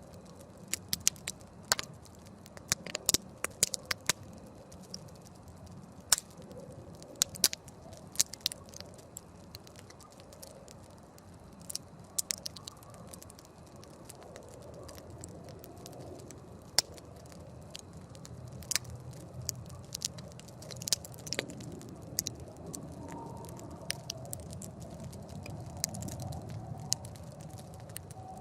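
Wood campfire crackling: sharp, irregular pops and snaps over a low, steady background of burning, which grows a little louder in the second half.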